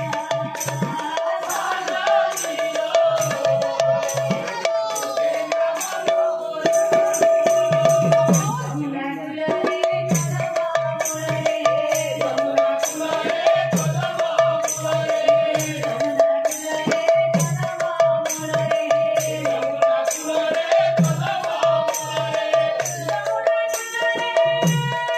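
Devotional kirtan music: a woman sings the melody over a two-headed barrel drum and large brass hand cymbals clashed in an even rhythm, with a steady held tone underneath. The music dips briefly about a third of the way in.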